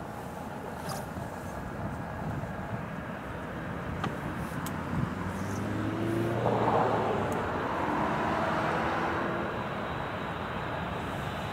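Boeing 747-400 airliner on short final approach, its four jet engines a steady rumble that grows louder about six seconds in as the aircraft nears the runway.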